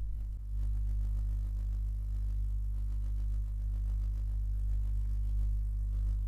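Steady low electrical hum with a few evenly spaced overtones, unchanging.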